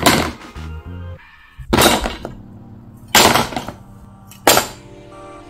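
Rusty die-cast metal parts of a 1969 Mustang GT500 model dropped one at a time into a plastic tub: four loud clattering impacts, each about a second and a half after the last, over soft background music.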